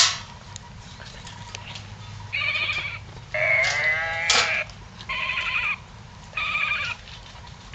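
Six-week-old Labrador retriever puppies whining: four high, wavering cries, the second the longest and loudest. A sharp click comes right at the start.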